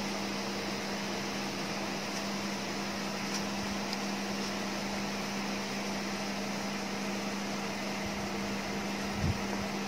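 Steady electric fan running: a constant low hum over an even hiss. A soft low thump comes near the end.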